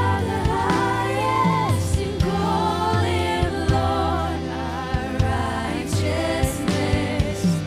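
Live worship music: a sung vocal line without clear words over a band, with steady low bass notes and regular drum and cymbal hits.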